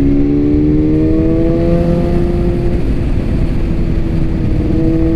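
BMW S1000RR's inline-four engine pulling under throttle, its pitch rising smoothly for the first two to three seconds and then holding steady, with wind and road rush underneath.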